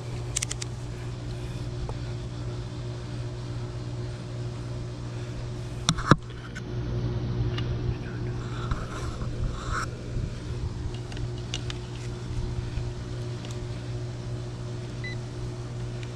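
Goodman central air-conditioner condenser unit switching on after its 45/5 MFD capacitor is replaced: a steady electrical hum, then sharp clicks about six seconds in, after which the unit runs louder with a steady mechanical hum as the compressor and fan start.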